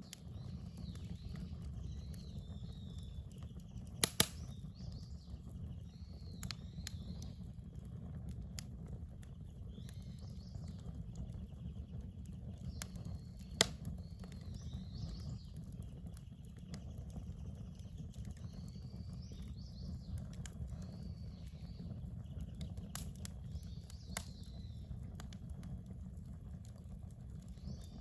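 Wood fire crackling, with scattered sharp pops, the loudest about four seconds in and near fourteen seconds, over a steady low rumble. Birds sing in the background.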